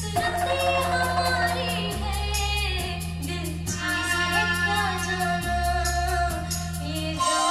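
A song with singing over a steady beat and deep bass, played through an Aosibao M18 tube amplifier and speakers. The bass drops out near the end, leaving a held high note.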